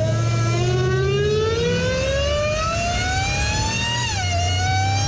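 Supercharger whine from a Dodge Challenger SRT Hellcat's supercharged 6.2-litre V8 under acceleration, with its Legmaker intake fitted and heard from inside the engine bay. The whine climbs steadily in pitch with the revs, drops sharply about four seconds in, then climbs again, over a low engine rumble.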